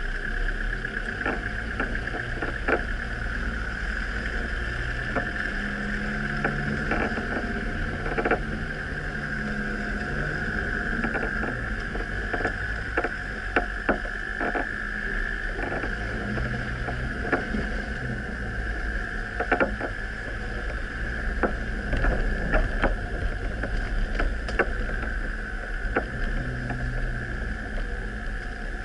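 Off-road vehicle driving slowly over a rough woodland track: a low engine note that rises and falls, with frequent short knocks and rattles from the bumps.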